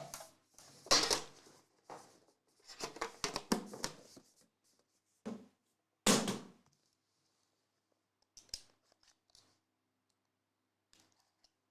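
Trading-card box packaging being cut or torn open and handled: several short rustling, tearing bursts over the first seven seconds, then a few faint clicks.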